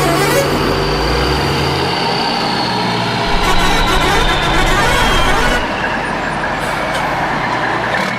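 Heavy vehicle engines running steadily, with a faint high whine that slowly falls in pitch through the middle.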